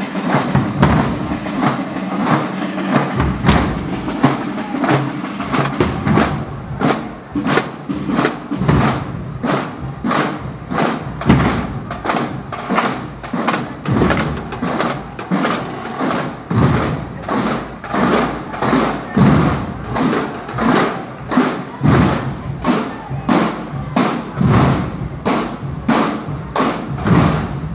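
Marching band drum line (bass drums, snare drums and cymbals) playing a steady marching cadence, with evenly spaced heavy drum strikes.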